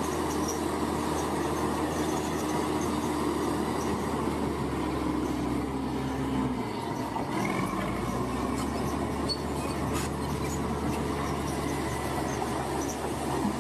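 Heavy diesel earthmoving machinery running steadily, its low engine note shifting briefly about halfway through.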